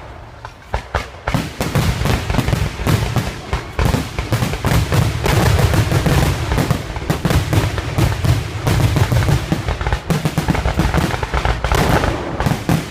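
Fireworks display in a rapid barrage: a quieter start, then from about a second in a dense, continuous string of sharp bangs and crackles over deep booms.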